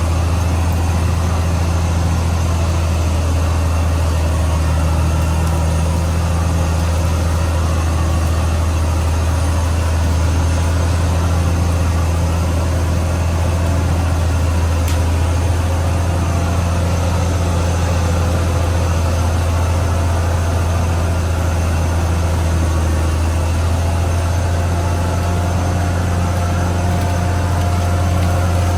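Diesel engine of a CAT D6R XL bulldozer running as a steady low drone, with little change in loudness.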